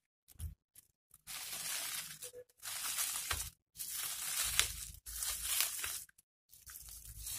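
Bubble wrap rustling and crinkling as hands pull it open, in about five separate bursts of roughly a second each with short silent gaps between them.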